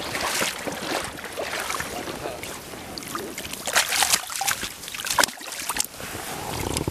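Close-up rustling, scuffing and sharp knocks, loudest about four and five seconds in, over the rush of river water.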